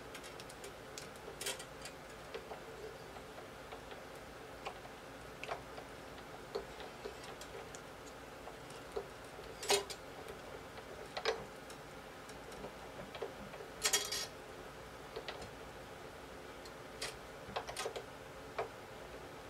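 Scattered, irregular light clicks and ticks from restringing an acoustic guitar: a steel string being fitted at the tuner post and a plastic string winder working the tuning key. A few clicks stand out, and there is a short scratchy rasp about two-thirds of the way through.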